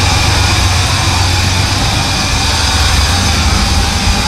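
V12 LS engine in a Kia Pregio van running steadily and loudly, with a deep, even exhaust note and no revving.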